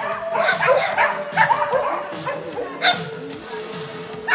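A dog barking in quick, repeated barks, which come less often after about two seconds.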